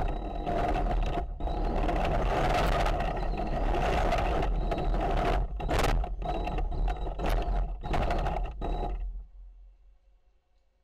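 The 3D-printed tank's drive and plastic tracks running with a steady mechanical clatter and hum, broken by brief dips, then stopping about nine seconds in.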